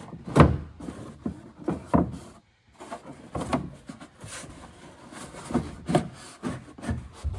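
Stiff cardboard trunk filler panel being slid and pushed into place in a car's trunk, scraping and bumping against the body in irregular knocks, the loudest about half a second in.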